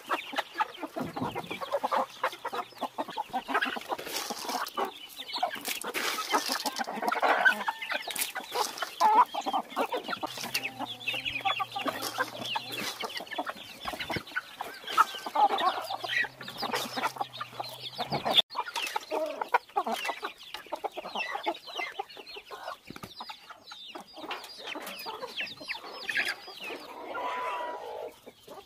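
A flock of chickens and roosters clucking as they feed on scattered grain, with many short ticks and taps throughout.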